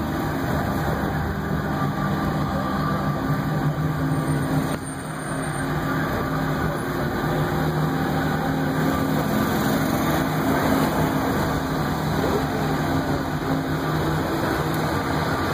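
Steady engine hum and running noise from a small vehicle driving along, with a brief dip in loudness about five seconds in.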